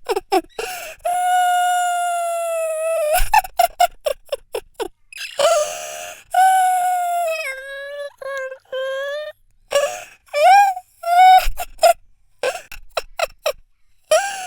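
A man crying in a high wailing voice: rapid sobbing gasps broken by long held wails, some sliding down in pitch.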